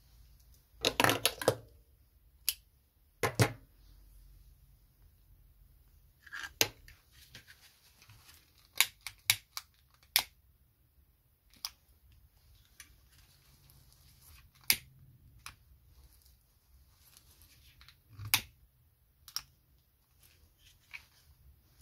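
Handling noises at a work table: a satin doll dress rustling, with scattered sharp clicks and taps as a marker and other small tools are picked up and put down.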